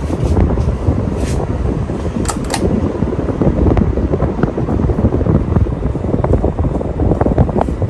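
Casablanca Panama 50-inch ceiling fan running: a steady rush of air with a rough, fluttering low rumble.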